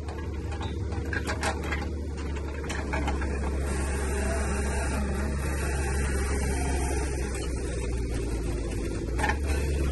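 Auger drill rig running steadily as its auger bores down into the soil for a bell footing, a low mechanical drone that grows a little louder a few seconds in. A few short knocks, one near the end.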